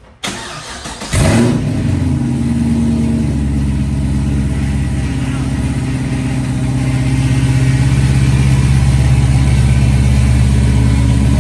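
A 2006 Pontiac GTO's 6.0-litre LS2 V8 is cranked by the starter for about a second, then fires with a loud flare and settles into a steady idle. It is the first start through freshly installed American Racing long-tube headers and X-pipe.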